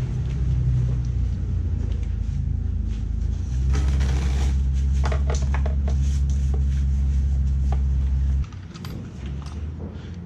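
A machine's steady low hum that gets louder a little over three seconds in and stops abruptly a little after eight seconds in, with a fainter hum left behind. A run of sharp clicks and knocks comes in the middle.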